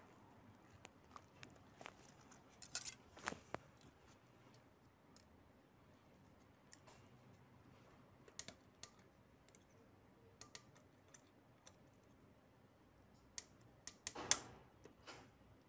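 Scattered faint metallic clicks and light scrapes of a steel feeler gauge blade being handled and slid into the valve clearance gap at the rocker arm and cam of a Honda CBR250R's cylinder head, with a louder cluster of clicks near the end.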